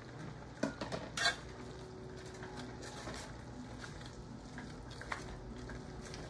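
A cooking utensil knocking and scraping against a pan while stirring wet taro leaves and onions, with a few sharp knocks about a second in and softer ticks after. A low, steady simmer of the food runs underneath.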